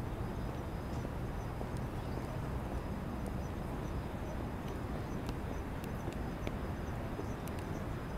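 Steady outdoor night ambience on a city waterfront: a low, even rumble of distant city noise with a faint high chirp repeating at even intervals and a few soft clicks.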